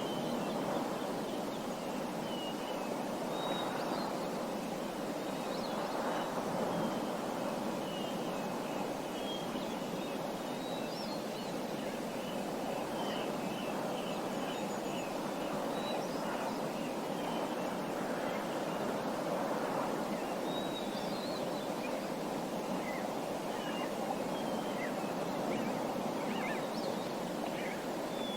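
Small birds chirping and twittering in quick high calls and short trills, over a steady rushing background noise.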